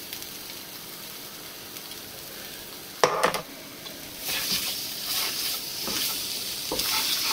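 Tomato paste and ground spices sizzling in hot oil in a non-stick frying pan. About three seconds in there is a sharp clack, and from about four seconds a slotted spatula scrapes and stirs the paste around the pan in repeated strokes over the sizzle.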